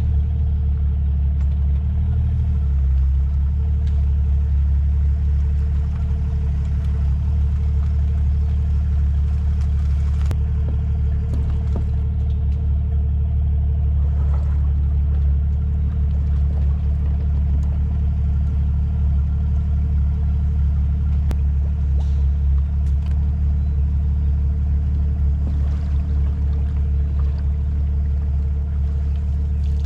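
Outboard motor of a bass boat idling with a steady low drone.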